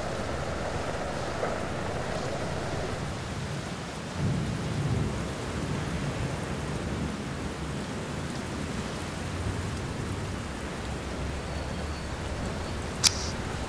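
Steady rain with low rumbles of thunder swelling up twice, and a single sharp click near the end.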